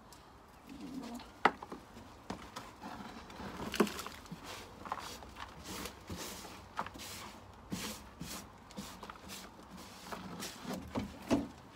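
Potting compost being scraped out of a tub and tipped into a wheelbarrow: a string of scattered knocks, scrapes and rustles, with two sharp knocks about one and a half and four seconds in.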